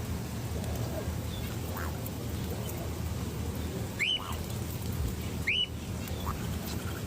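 Birds calling: two sharp upswept calls about four and five and a half seconds in, with a few fainter, lower calls between, over a steady low rumble.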